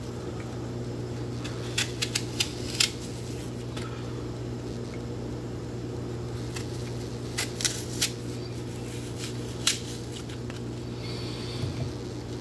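A paring knife clicking against a wooden cutting board while apple quarters are cored and cut. There is a quick run of sharp clicks about two seconds in, a few more around seven to eight seconds, and one near ten seconds, over a steady low hum.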